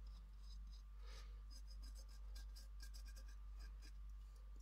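Fingertip rubbing wax over a rough, gritty gesso-textured glass vase: faint, irregular scratchy strokes over a low steady hum.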